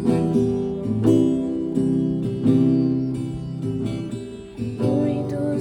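Acoustic guitar strumming chords in an instrumental passage of a worship song, with a singing voice coming in near the end.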